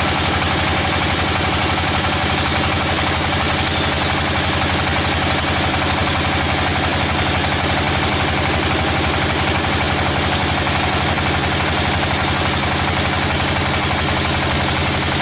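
Sawmill machinery engine running at a steady, unchanging speed, with no rise or fall in pitch.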